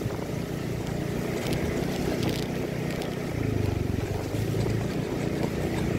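Suzuki Address 110 scooter's engine running under way, steady, with wind buffeting the microphone.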